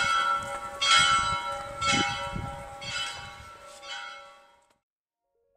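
Church tower bell tolling, one stroke about every second, five strokes that fade away until the sound cuts off near the end.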